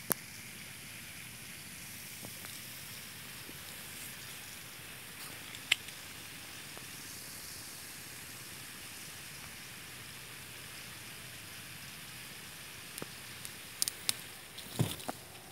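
Steady high hiss of outdoor background noise. Near the end come several sharp clicks and a brief low bump, as leaves brush against the handheld camera.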